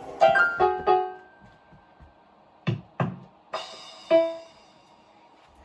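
Electronic keyboard playing a few short notes, then two sharp bangs about a third of a second apart, then a noisy burst and another note that fade out.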